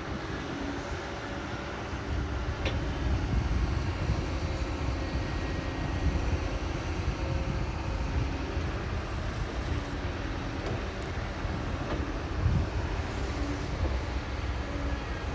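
Heavy diesel construction machinery running steadily, a low rumble with a faint engine hum.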